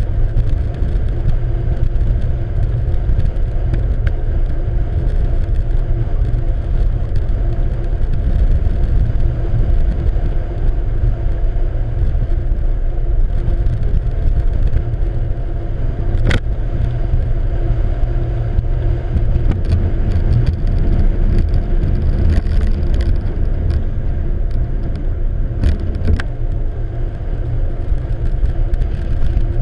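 Twin outboard motors of a tow boat running steadily under load, buried in a loud low rumble of wind and rushing water. A few sharp knocks come about halfway through and near the end.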